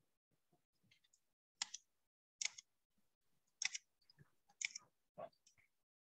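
Computer keyboard keys clicking as text is typed: separate sharp key clicks, roughly one a second, with near silence between them.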